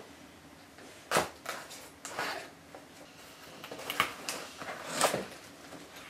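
Cardboard shipping box being opened: a box cutter slitting the packing tape, then the tape and cardboard lid pulled open, heard as a string of short scratchy rips and snaps.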